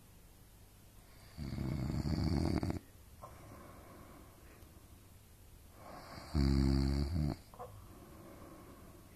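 A sleeping person snoring: two loud snores about five seconds apart, the second with a low pitched buzz.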